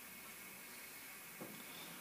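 Faint steady hiss of a quiet workshop, with one small click about one and a half seconds in as the tool and cutter grinder's fixtures are handled.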